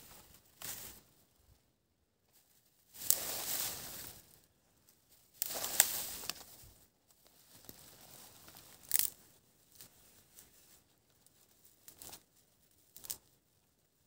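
Dry dead twigs and branches being pulled up and snapped by hand: two longer crackling bursts a few seconds in, then single sharp snaps later on.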